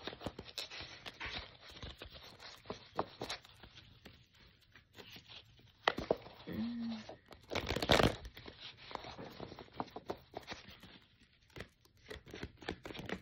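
A deck of tarot cards being shuffled and handled: papery riffles, swishes and soft card slaps, with a couple of louder shuffles about halfway through.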